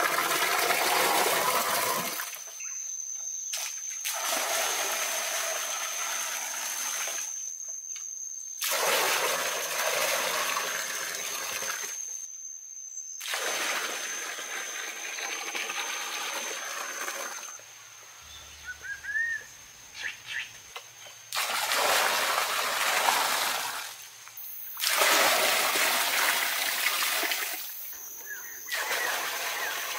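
Water poured from an earthenware pot, gushing and splashing into a pool, in several separate pours that start and stop abruptly. A steady high-pitched tone runs underneath, and a few short bird chirps come through during a quieter stretch about two-thirds of the way in.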